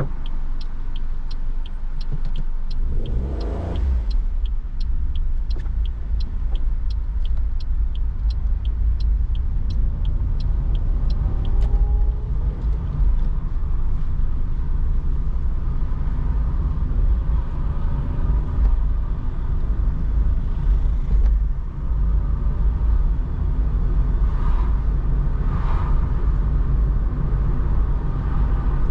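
Car driving, heard from inside the cabin: a steady low rumble of engine and road, with a turn indicator ticking about twice a second for the first eleven seconds or so.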